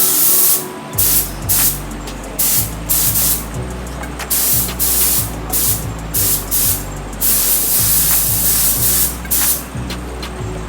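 Compressed-air paint spray gun hissing in a dozen or so short bursts as the trigger is pulled and released, laying down a first coat of paint on wheels.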